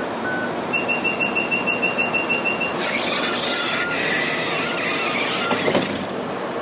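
Door-closing warning on a Hong Kong Light Rail vehicle: a rapid string of short, high beeps, about six a second for two seconds. Then the sliding doors shut with a hissing, mechanical noise, ending in a thump near the end.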